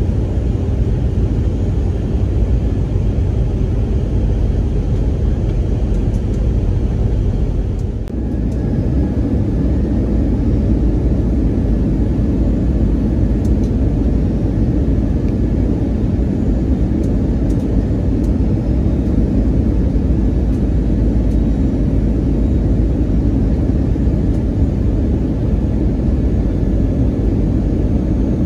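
Steady cabin noise of an Airbus A320-family airliner: a low engine-and-airflow rumble and rush heard from inside the cabin, with a brief dip about eight seconds in.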